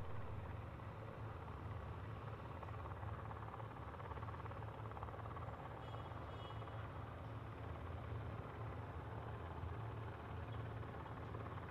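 Faint, steady outdoor background rumble with a constant low hum, and a few faint high chirps about six seconds in.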